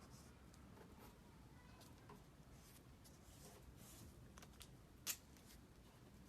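Near silence with faint scattered clicks and rustles, and one sharper click about five seconds in.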